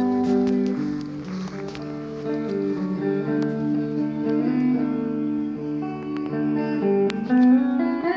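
Guitar jam: a plucked guitar playing slow, ringing notes and chords that hold and overlap.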